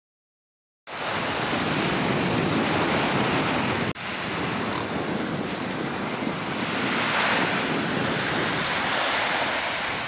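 Small waves breaking and washing up on a sandy beach, with wind rumbling on the microphone. The sound starts abruptly about a second in and drops out for an instant near four seconds.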